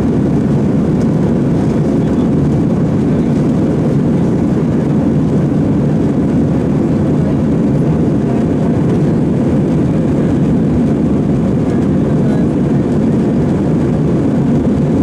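Steady engine and airflow noise heard inside the passenger cabin of a jet airliner in flight: a low, even rush that does not change.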